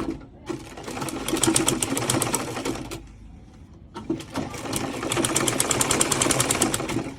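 Sewing machine stitching a zipper into a garment: two runs of rapid, even stitching, the first about two and a half seconds long, then a pause of about a second, then a second run of about three seconds.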